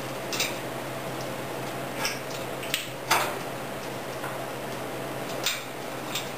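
Light metallic clinks of a steel pin, washer and cotter pin being worked by hand into a snowplow blade's mounting bracket, about five scattered clinks, the loudest about three seconds in, over a steady low hum.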